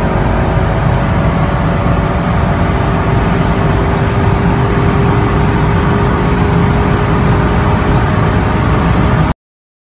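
Tuned VW Golf R's turbocharged four-cylinder engine drone mixed with heavy wind and road noise inside the cabin while the car accelerates at high speed in a high gear, from about 240 to over 270 km/h. The sound cuts off abruptly near the end.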